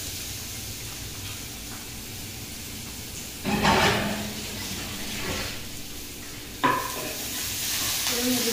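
Ground dried red chilli paste, garlic and ginger frying in hot oil in a pan: a steady sizzle, stirred with a spoon. About three and a half seconds in there is a louder burst of sizzling as it is stirred. About two-thirds of the way through a utensil knocks once sharply against the pan.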